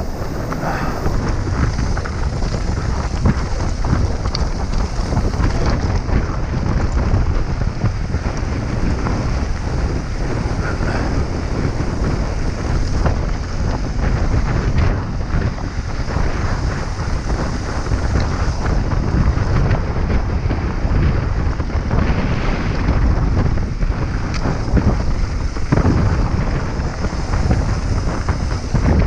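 Wind rushing hard over the microphone of a mountain bike descending a dirt and gravel trail at speed, with a constant clatter of tyres and bike parts over bumps and stones.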